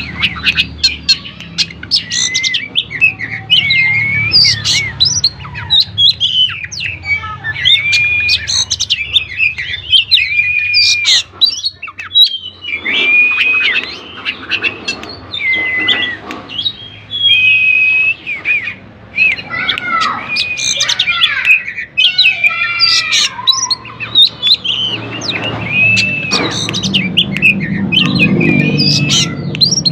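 Oriental magpie-robin (kacer) singing continuously: a varied, unbroken run of loud whistled phrases with rising and falling glides, short chirps and trills. A low steady hum lies under the song and grows louder near the end.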